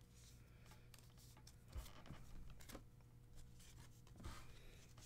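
Faint handling of trading cards: a few soft scrapes and rustles as cards slide against each other, over a low steady hum of room tone.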